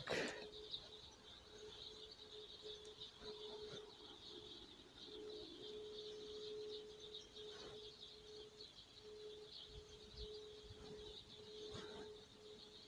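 Faint high chirping in the background, steady and flickering throughout, over a thin steady low tone that breaks off now and then, with a few soft clicks as a fishing float and line are handled.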